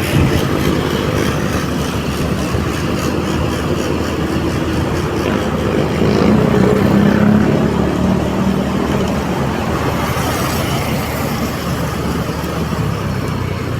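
Motorcycle engine running with road noise while riding, the engine note swelling louder about six seconds in and easing off a couple of seconds later.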